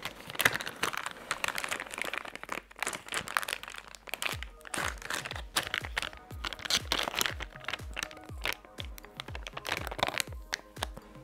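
Plastic bag crinkling as it is handled, over background music whose low, steady beat comes in about four seconds in.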